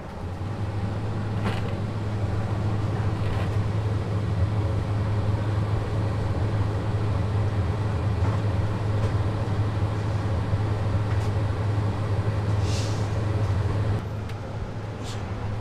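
A steady, loud low mechanical rumble with a strong hum, with a few light knocks and a brief hiss near the end.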